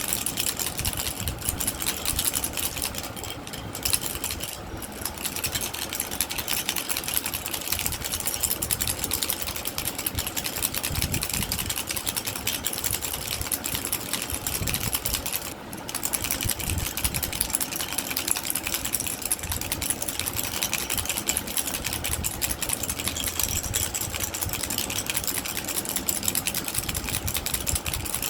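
Baby rattle shaken rapidly and continuously, its beads giving a dense, fast clicking, with a brief falter twice.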